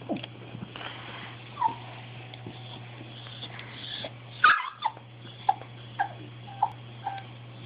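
Pembroke Welsh corgi whimpering in short, high yips, a run of them about half a second apart in the second half, the loudest about four and a half seconds in. This is the dog's demand whining for something he wants.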